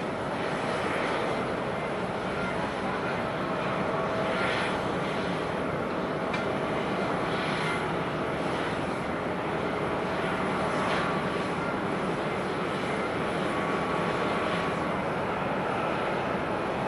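Airbus A350-941 airliner's Rolls-Royce Trent XWB jet engines running, a steady rush with a faint whine through it.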